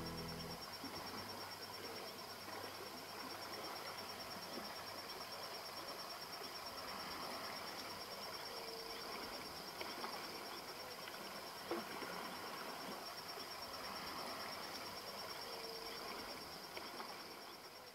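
Evening riverside ambience: insects trill steadily on one high note over a faint background hiss. Two short low calls come about 9 and 16 seconds in, and there is a single sharp click near 12 seconds. The sound fades out near the end.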